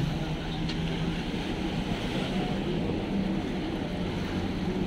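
A motor launch's engine running steadily with a low hum, over a steady rush of wind and water.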